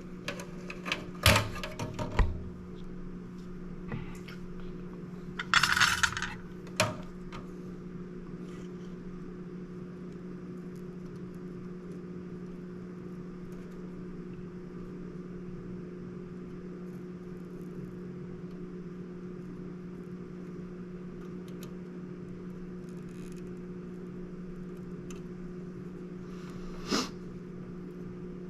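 Small metal clicks and clinks from handling soldering tools and a circuit board: a few sharp clicks in the first seconds, a short hissing scrape about six seconds in, and one more click near the end, over a steady low electrical hum.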